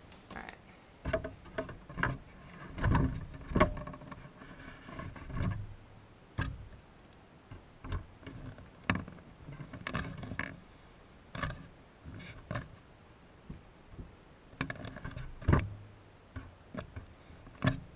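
Handling noise: rustling and irregular bumps and knocks as a cord weave is shifted and a foot is repositioned, with the loudest knock about fifteen seconds in.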